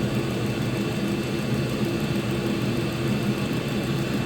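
Diesel air heater running steadily, an even mechanical hum of its fan with a faint steady high whine.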